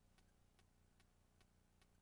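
Near silence: a faint low hum with a faint regular tick about two and a half times a second.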